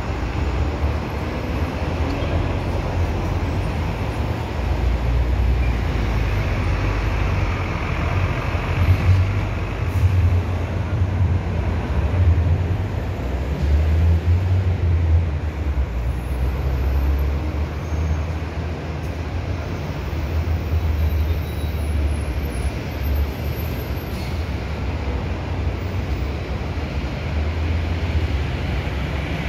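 Busy city street traffic: buses, minibuses and cars running along the road, a steady mix of engine and tyre noise over a heavy low rumble that swells and eases.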